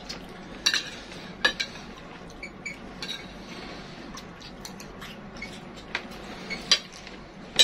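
Metal spoons scraping and clinking against ceramic plates as two people eat, with scattered sharp clicks.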